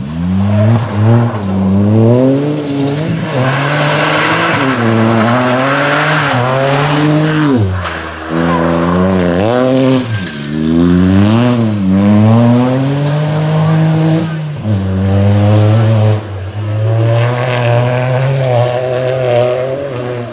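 Rally car engine at full throttle, revs climbing and dropping again and again through gear changes and lift-offs for corners, with a hiss of tyres sliding on loose gravel.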